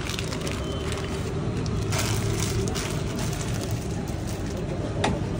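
Busy street-food kitchen ambience: a steady low rumble with a few light clicks and knocks, about two seconds in and again near the end.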